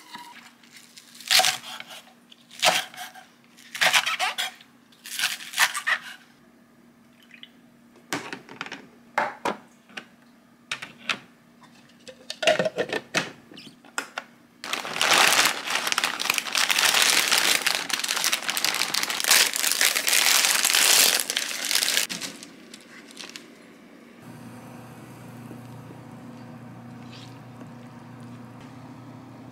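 A run of kitchen sounds: sharp clatters and knocks in the first six seconds, then lighter taps as eggs are set into the plastic tray of an electric egg steamer. A loud, steady rushing noise follows for about seven seconds. In the last few seconds a steady low hum comes from a pan of water at a boil on an induction cooktop.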